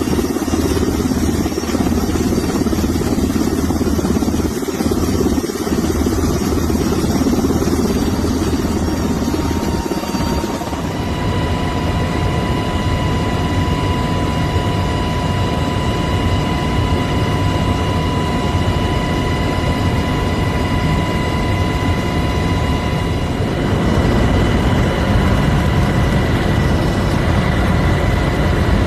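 Helicopter in flight, with steady rotor and turbine engine noise. A steady high whine comes in about ten seconds in, and the low rumble grows louder near the end.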